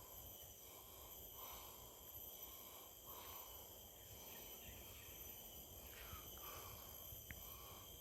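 Near silence: faint outdoor ambience with a steady high insect buzz, and soft rustles about every second and a half.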